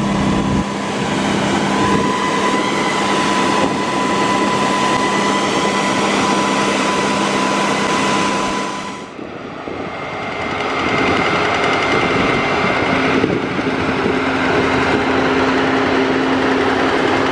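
Harvest machinery running steadily with a constant whine. About nine seconds in the sound dips briefly, then comes back at a slightly different pitch.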